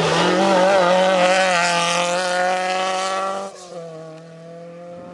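Volkswagen Polo rally car's engine running hard at a fairly steady pitch as the car slides through a gravel corner. About three and a half seconds in it suddenly gets much quieter and carries on faintly as the car drives off down the stage.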